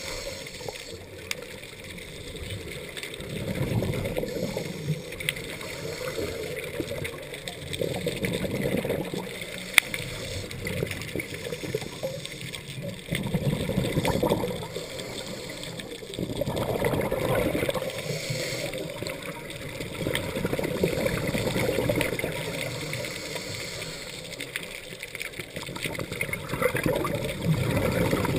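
A scuba diver breathing through a regulator underwater: a gurgling rush of exhaled bubbles swells about every four to five seconds, with a steady hiss between the breaths.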